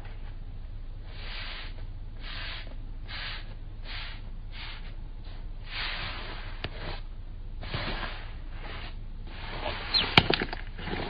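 Slime being squeezed and kneaded by hand, squishing about once a second, with a few sharp pops of air near the end.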